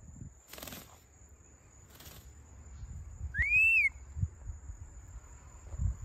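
Hawk-headed parrot giving one loud clear whistle a little past the middle, rising in pitch and dipping slightly at the end. Two short rustling bursts come earlier.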